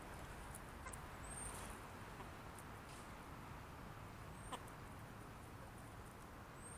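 Chickens feeding quietly on a mat of sprouted-grain fodder, with a few faint, scattered pecking clicks. Three short, high chirps come through, about a second in, in the middle and near the end.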